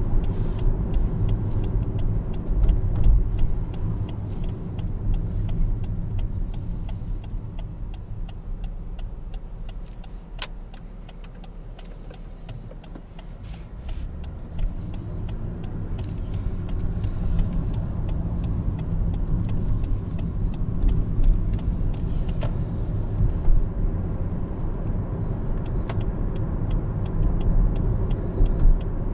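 Interior cabin sound of a 2020 Lexus ES 350 with its 3.5-litre V6 on the road: a steady low rumble of engine and tyre noise that quietens as the car slows almost to a stop about ten seconds in, then builds again as it pulls away and gathers speed. A faint rapid ticking runs under it.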